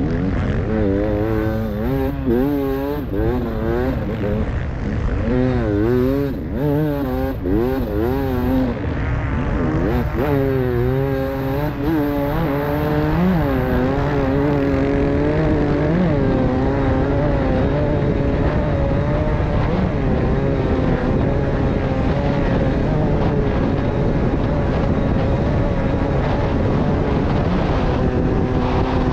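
A Beta 300 RR two-stroke enduro motorcycle's engine, recorded onboard while racing on sand. For the first half the revs rise and fall rapidly as the throttle is worked over rough ground. It then holds at a steady high pitch at full speed along a straight.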